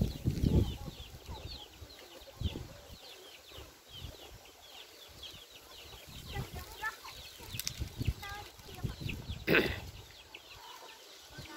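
Birds chirping in a rapid run of short, high, falling notes, with a few lower calls mixed in and one louder sharp sound about nine and a half seconds in.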